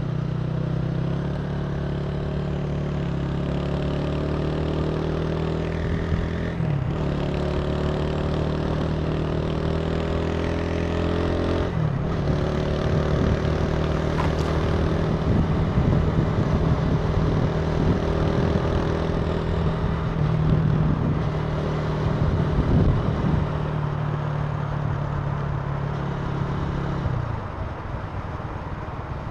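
Italika TC300 motorcycle engine under way, pulling up in pitch and dropping at gear changes about seven and twelve seconds in, then running steadily at speed with wind and road noise. Near the end the throttle eases off and the engine note and level drop.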